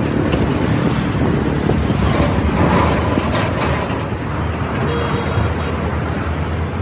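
Steady low rumble of road traffic and running engines, with a brief high tone about five seconds in.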